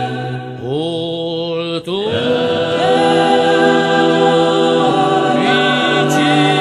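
Unaccompanied choral singing: several voices holding long notes together, with a new phrase sliding in just under a second in and a brief break about two seconds in.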